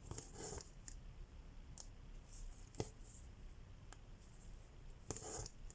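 Cross-stitch needle and floss working through fabric: two brief swishes of thread being drawn through, with a few sharp clicks of the needle piercing the cloth in between, the loudest about halfway.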